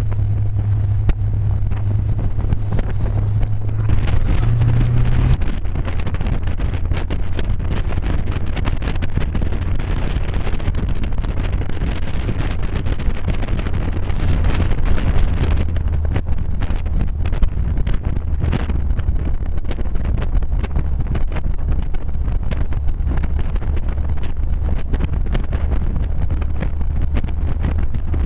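Classic Triumph TR sports car's engine running on the road, with wind and road noise over it. About five seconds in, the engine note drops to a lower pitch and then holds steady.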